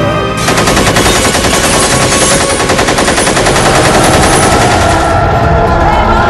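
Automatic rifle fire: one long rapid burst that starts about half a second in and stops about five seconds in.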